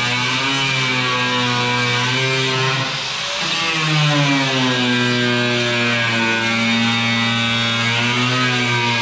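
Electric angle grinder cutting into a sheet-steel car quarter panel. The motor runs loud and steady, its pitch sagging as it bites about three seconds in, then picking back up.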